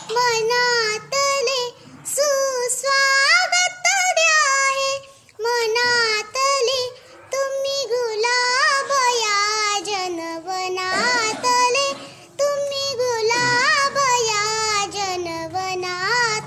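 A young girl singing a Marathi song solo in a high, clear voice, with many quick turns and wavers in pitch, in phrases broken by short pauses for breath, over a faint low accompaniment.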